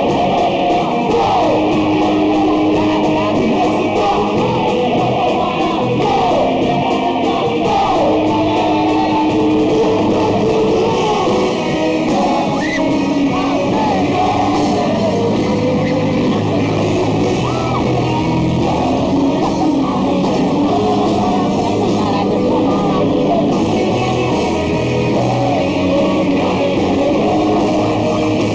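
Rock band playing loud and steady, with electric guitars and a lead singer.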